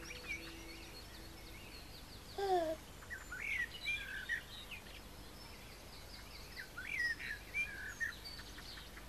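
Birds chirping and singing in short rapid calls: the ambient birdsong of a children's TV soundtrack. About two and a half seconds in comes one brief falling vocal sound.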